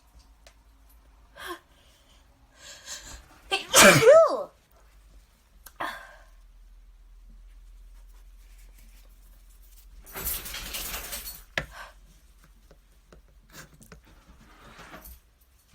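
A congested person's sneezing fit: a few breathy intakes build to one loud, voiced sneeze about four seconds in. A second, longer and breathier burst comes about ten seconds in, with small sniffs and breaths between.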